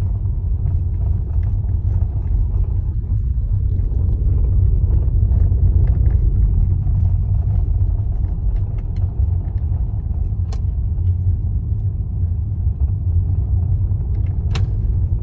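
Tesla Model S being driven: steady road and tyre rumble with scattered small knocks and rattles from the front end, and two sharper clicks, one about two-thirds of the way through and one near the end. The knocking is traced to a worn lower steering intermediate shaft (I-shaft).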